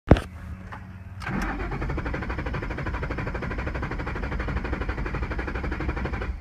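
A sharp click, then about a second in the starter cranks the 2011 Mustang GT's 5.0-litre V8 at an even rate without it firing, cutting off suddenly near the end: a no-start.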